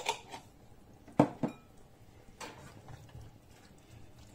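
A cooking utensil knocking against a frying pan of chicken pieces a few times, with the loudest knock a little over a second in.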